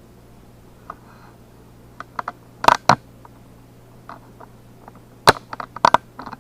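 Handling noise: a scattering of sharp clicks and knocks, the loudest a close pair about a third of the way in and a quick cluster just past halfway.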